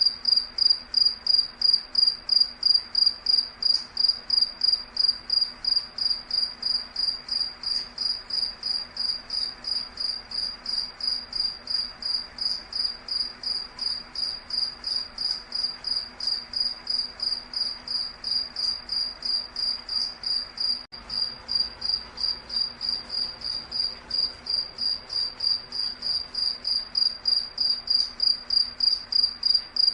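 A cricket chirping steadily and evenly, about three high-pitched chirps a second.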